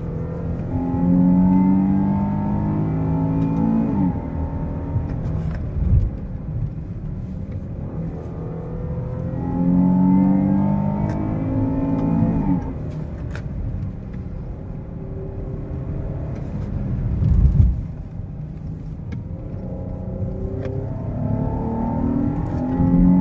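A 2014 Chrysler 300's 3.0-litre V6 accelerating three times, its note rising in pitch and dropping suddenly at each upshift. Between the pulls there is steady road and tyre noise, with two short low thumps about six seconds in and again near seventeen seconds.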